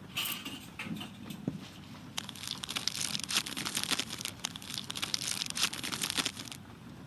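Fireplace crackling: a few sharp pops in the first second and a half, then a dense run of crackles from about two seconds in that stops abruptly near the end, over a steady low background noise.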